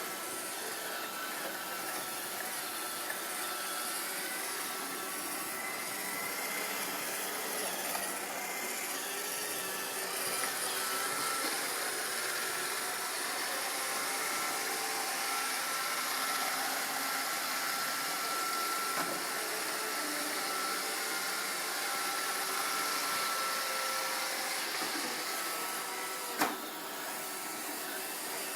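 iRobot Roomba 531 robot vacuum running: a steady whir with a thin high whine that comes and goes, and one sharp knock near the end.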